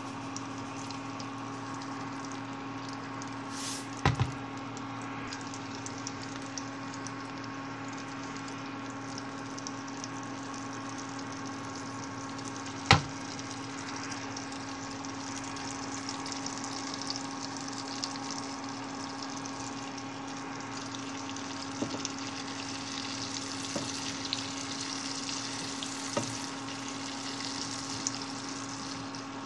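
Asparagus spears sizzling in oil in a nonstick frying pan, a steady crackle over a constant low hum. Two sharp knocks stand out, the louder one about 13 seconds in, and the sizzling grows livelier with small ticks near the end as a wooden spoon turns the spears.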